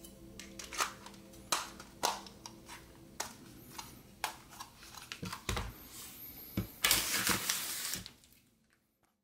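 Hard plastic drone gear being handled and set down on a wooden table: a string of irregular clicks and knocks, with a louder stretch of rustling and clatter a little before the end, then the sound fades out.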